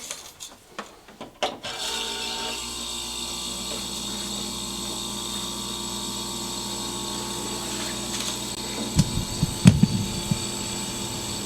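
Refrigerator compressor starting up after a couple of seconds and humming steadily, with a new combination start relay fitted. It draws about 2 amps, which the technician reads as running fine. A few low knocks of handling come near the end.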